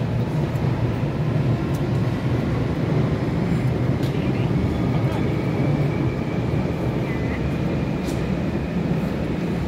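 London Underground Jubilee line 1996-stock trains: a steady low rumble as a train pulls out of the far platform. A faint rising motor whine comes in from about four seconds in.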